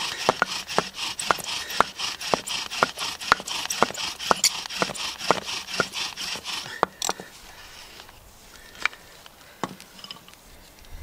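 Bow drill being worked hard to make an ember: the wooden spindle is spun back and forth by the bow, grinding in the socket of a wooden hearth board with a steady rasping hiss and a click at each stroke, about three or four a second. It stops about seven seconds in, with the socket smoking, and a few faint taps follow.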